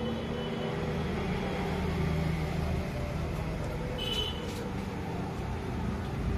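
Small brass drill-chuck collet nut being screwed onto a DC motor shaft by hand, giving a brief cluster of light metallic clicks about four seconds in, over a steady low hum.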